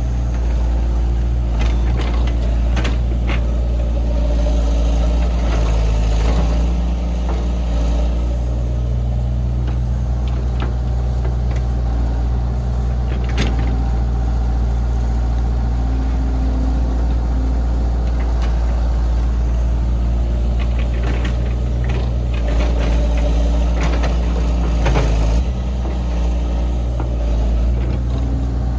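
Diesel engine of heavy farm machinery running steadily, its pitch shifting a few times as the load changes, with scattered knocks and clanks throughout.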